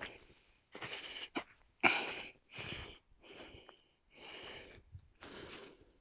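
Footsteps on dry leaf litter and twigs, a step about every second, each a short rustling crunch.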